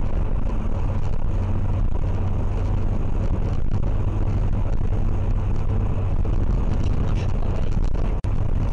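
Steady low road and engine rumble inside a moving car's cabin, picked up by a dashcam, with a constant low hum; it drops out for an instant near the end.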